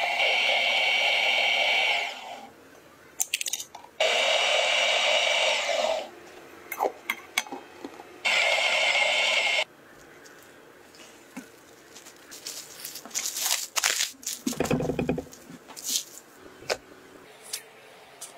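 Stand mixer motor running at low speed, mixing butter into flour, in three runs of about two seconds each that cut off abruptly. After that, much quieter clicks, light taps and a dull thump as dough is pressed and scraped on a plastic mat.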